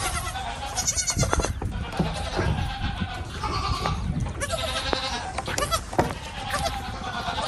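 Goats bleating, several calls one after another and overlapping, with a few sharp knocks in between.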